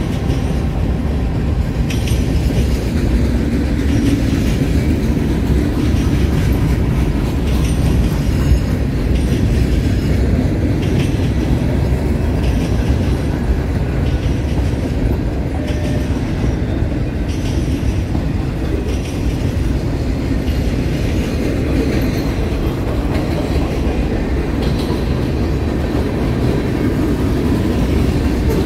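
Freight cars of a long mixed freight train rolling past close by. The steel wheels make a steady loud rumble on the rails, with irregular clicking and clanking as wheels pass over rail joints.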